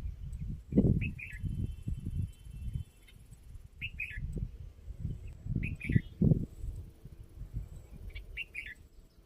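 A bird calling in short chirps, mostly in quick pairs, repeated every two seconds or so. Under them is a louder low rumbling noise that comes and goes.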